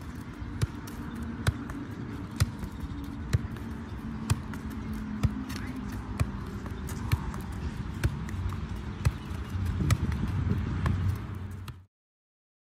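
A football being juggled, thudding against the player's body and feet about once a second, with softer touches between, over a steady low hum. The sound cuts off suddenly near the end.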